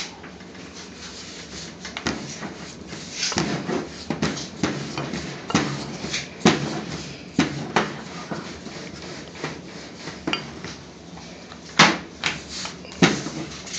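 Wooden rolling pin rolling chapati dough on a floured metal worktop: soft rubbing strokes broken by irregular knocks and taps as the pin and dough hit the metal, with two sharper knocks near the end.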